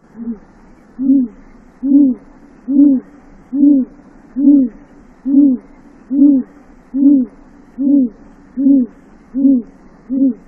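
A bird giving a long, evenly paced series of low hoots, thirteen notes a little over one a second, each note briefly rising and falling in pitch.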